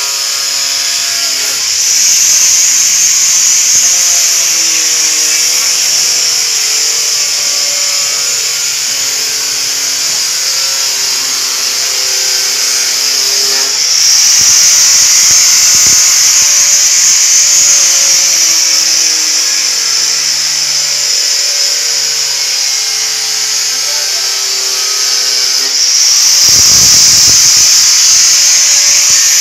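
Corded hand-held electric sander with an orange sanding pad, running against plywood as it is smoothed before polishing: a steady high whine whose pitch wavers as the pad is pressed and moved. It grows louder about halfway through and again near the end.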